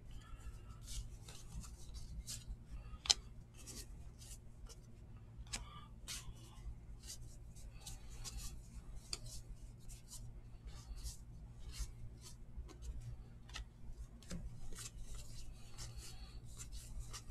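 Stack of 2019 Archives baseball trading cards being flipped through by hand: card stock sliding and snapping against card stock in an irregular run of light clicks, the sharpest about three seconds in, over a low steady hum.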